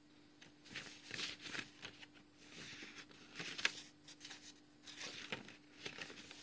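Faint rummaging: scattered rustles and light knocks of things being shifted about during a search, with one sharper knock a little past halfway, over a faint steady hum.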